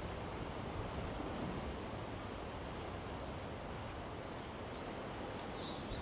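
Steady outdoor rushing noise, with a few faint high bird chirps and, near the end, a clearer high bird call that slides downward.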